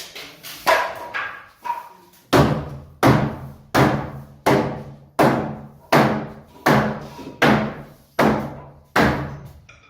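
Hammer blows on the wood framing: a few lighter knocks, then about ten heavy, evenly paced strikes, a little under a second and a half apart, each ringing briefly through the structure.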